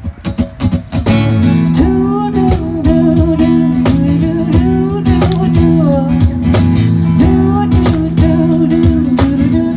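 A live band starts the instrumental intro of a country song: strummed guitar chords with a bending melody line over them, coming in fully about a second in.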